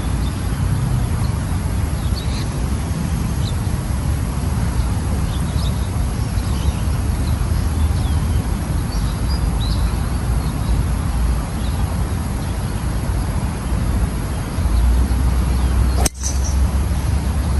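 Steady low outdoor rumble with birds chirping faintly, then a driver striking a golf ball off the tee: one sharp crack near the end.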